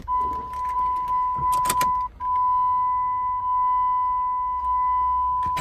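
1996 Jeep Grand Cherokee's dashboard warning tone, a steady high beep with the ignition key turned on. It breaks off for a moment about two seconds in and then carries on, with a few clicks of the key in the ignition just before the break.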